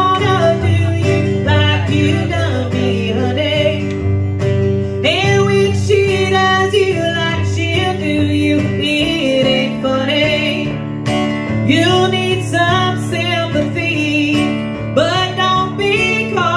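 A woman singing and strumming an acoustic guitar in a live solo performance.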